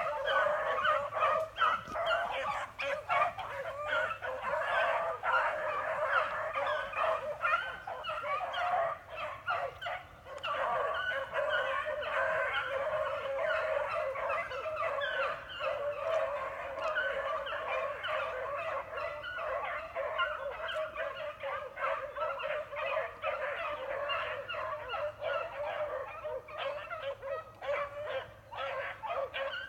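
A pack of beagles baying together on a rabbit's trail: many overlapping voices giving tongue without a break, the sign that the hounds are running a rabbit.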